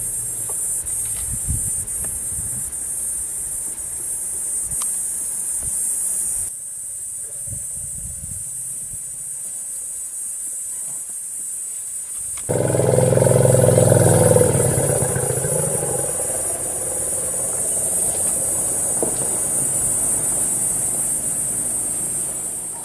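A steady high-pitched insect chorus drones on, drops out for several seconds partway through, then returns. When it returns, a louder low rumble comes in underneath.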